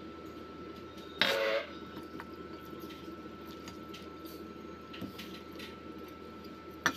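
Light clicks of wooden chopsticks against a stainless steel bowl while eating noodles, over a steady background hum with a faint high tone. One short louder sound comes about a second in, and a sharp click near the end.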